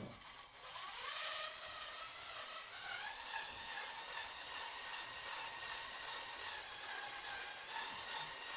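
Electric motor of a Lego train locomotive whining as it pulls away, rising in pitch over the first couple of seconds, then running at a steady pitch.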